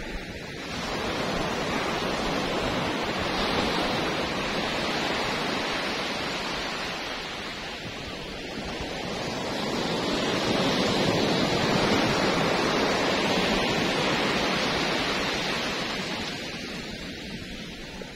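Waves breaking and washing up a beach: a continuous rush that swells about a second in, eases around eight seconds in, builds again from about ten seconds and fades near the end.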